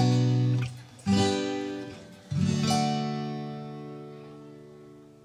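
Background music on acoustic guitar: three chords struck about a second apart, the last one left ringing and slowly fading away.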